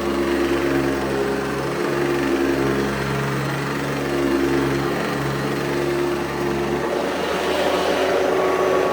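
1985 Hoover Convertible U4387 upright vacuum running steadily, its motor driving the agitator through a badly worn, chewed-up belt; the motor sounds healthy. The pitch holds, and the lower tones change about seven seconds in.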